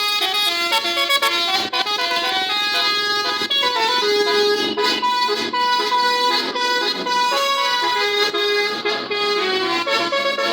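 Multi-tone "telolet" bus air horn playing a tune: a run of held notes stepping up and down in pitch, sounding almost without a break.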